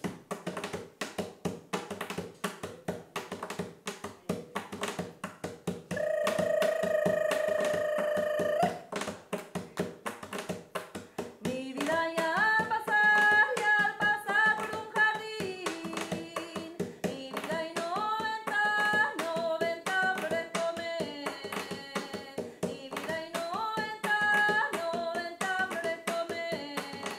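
Closing music with no speech: a fast, even rhythm of short plucked or tapped strokes throughout, one long held note about a quarter of the way in, then a melody moving in steps from about halfway on.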